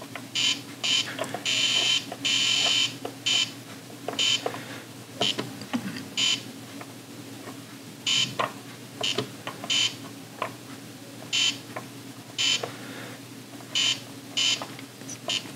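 Etch A Sketch Animator giving short electronic beeps at irregular intervals as its knobs are turned, with one longer beep about two seconds in and faint clicks between the beeps.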